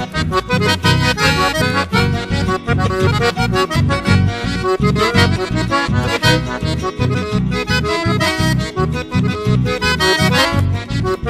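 Chamamé band music led by an accordion. The bass and rhythm section come in right at the start with a steady pulsing beat, and no singing is heard.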